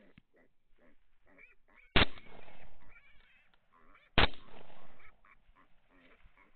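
Two rifle shots about two seconds apart, each followed by a brief echo. Between the shots come short squeals and grunts from feral hogs running off.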